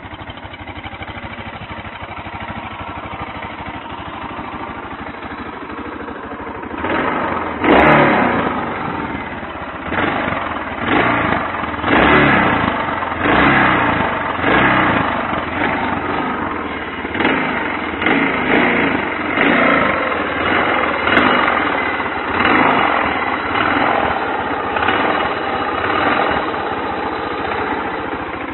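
1997 Suzuki Freewind XF650's single-cylinder engine through its stock exhaust, idling steadily, then revved in a long string of short throttle blips about once a second, easing back toward idle near the end.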